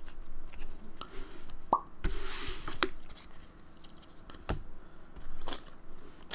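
Trading cards handled and laid down on a playmat: light taps, slides and rustles, with a short rising pop just before two seconds in.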